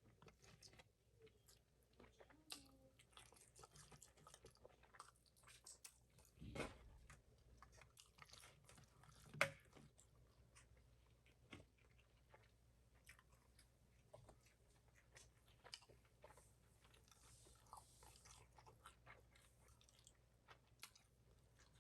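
Faint, close-miked chewing and soft crunching of food, with small wet mouth clicks throughout. A louder knock comes about six and a half seconds in and a sharp click about nine and a half seconds in.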